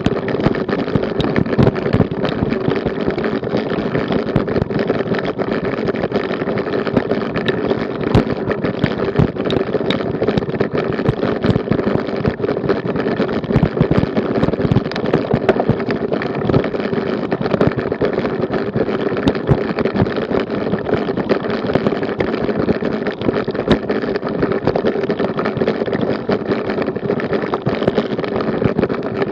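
Road bicycle and its mounted action camera rattling over cobblestones: a dense, irregular clatter of jolts with a steady hum underneath.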